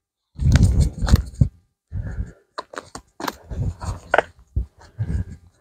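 Footsteps through moss, pine needles and dry twigs on a forest floor, in irregular crunchy steps with sharp snaps of twigs breaking underfoot.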